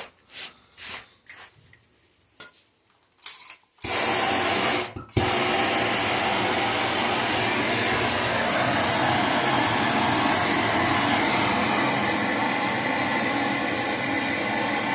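A few short clicks and knocks, then about four seconds in a handheld gas soldering torch lights and burns with a loud, steady hiss. It drops out for a moment about a second later and comes straight back. The torch is heating a fluxed copper pipe joint for soldering.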